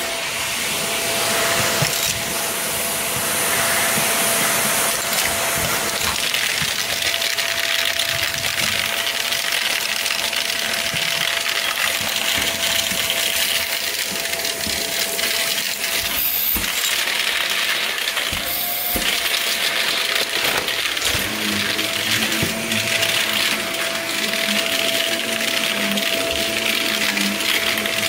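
Bagless upright vacuum cleaner running over heavily soiled carpet, its motor whining steadily, with grit and debris clicking and rattling as they are sucked up.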